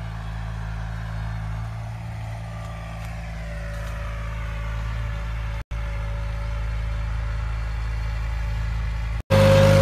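Tractor engine running steadily as it works the field: a low, even engine hum with a slowly falling whine a few seconds in. The sound cuts out for an instant twice and is louder after the second break, near the end.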